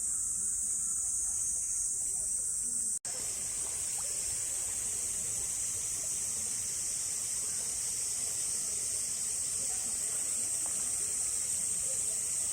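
Steady, high-pitched chorus of insects droning without a break. It cuts out for an instant about three seconds in, then resumes with a broader hiss underneath.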